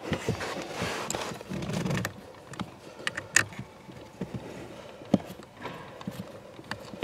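Scattered plastic clicks and knocks, with some rustling, as hands work the plastic housing and trim around a car battery.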